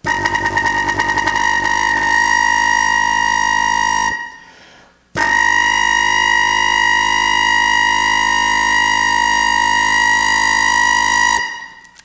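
A loud, brassy, horn-like note held twice: a note of about four seconds that wavers at its start, a gap of about a second, then a steadier note of about six seconds that fades near the end.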